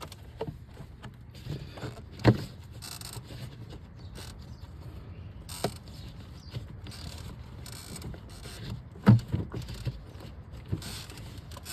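A hose being worked back onto its fitting by hand in an engine bay: scattered clicks and knocks with rustling between, the sharpest knocks about two seconds in and about nine seconds in.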